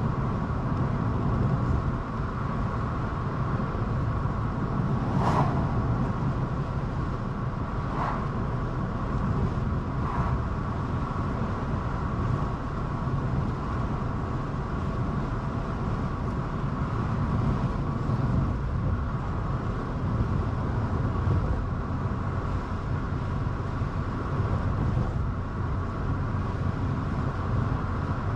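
Steady tyre and engine noise of a car driving along a city street, with three short ticks in the first half.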